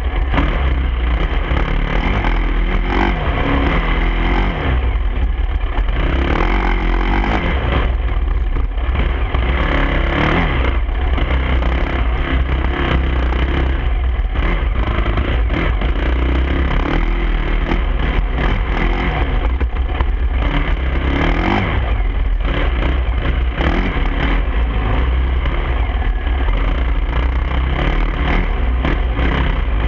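Dirt bike engine revving up and down over and over as it is ridden along a rough dirt trail, the pitch rising and falling every second or two with the throttle.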